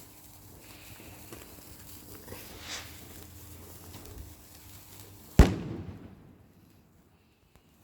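A single loud firework bang about five seconds in, a sharp crack with a short ringing tail, over faint background noise.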